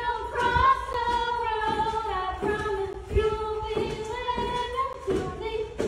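Children singing a tune together without backing music, holding notes and changing pitch every half second or so, with a few sharp knocks among the singing.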